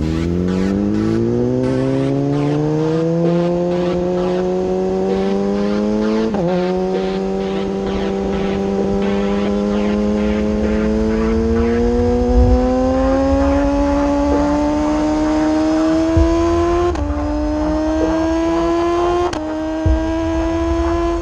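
BMW S1000RR inline-four with its catalytic converter removed, pulling hard and accelerating. The exhaust note climbs quickly at first, then rises slowly and steadily, dipping briefly at upshifts about six seconds in and twice near the end.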